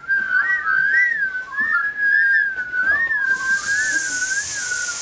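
Whistling: one high, wavering whistle that glides up and down around a single pitch, with a second, lower whistle joining for a while in the middle. A steady hiss comes in a little past three seconds.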